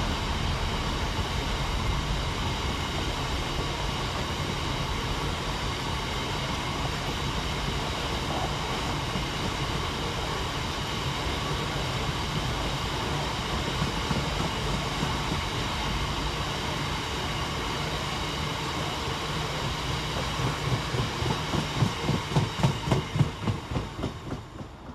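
Freight train's open box wagons rolling past at speed: a steady rumble and rattle of wheels on rail. In the last few seconds it turns into a fast run of rhythmic clickety-clack as the last wagons' wheelsets pass over the rail joints, then it fades as the train clears.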